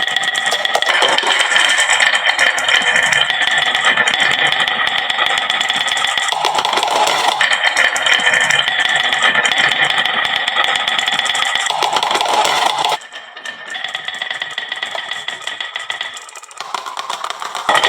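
Marbles rolling and clattering down a wooden HABA marble run track, a dense rapid rattle of clicks. It drops quieter for a few seconds near the end, then picks up again.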